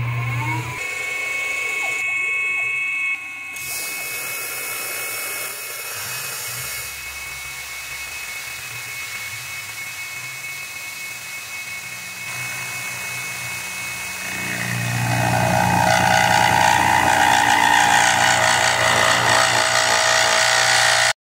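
PM-30 CNC milling machine's spindle whining steadily as an end mill cuts an aluminium block, with a few seconds of high hiss near the start. About fourteen seconds in, the cut grows much louder: an overly aggressive cut, which the machinist says was pulling the tool out.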